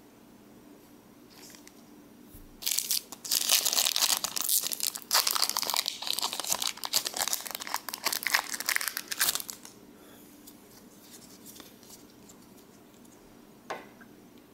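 Foil wrapper of a Pokémon card booster pack being torn open and crinkled: a dense run of crackling, tearing and rustling starting about two and a half seconds in and lasting about seven seconds, then quiet apart from one small click near the end.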